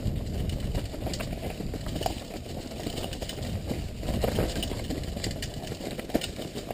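Mountain bike rolling fast down a rough, leaf-covered dirt trail: tyres rumbling over the ground, with the bike rattling and knocking over bumps.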